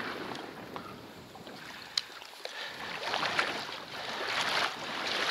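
Shallow marsh water sloshing and swishing as a person moves through it, growing louder in the second half, with one sharp click about two seconds in.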